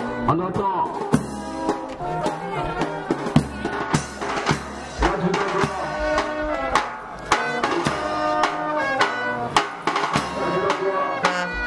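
Band music with a steady drum beat and brass playing.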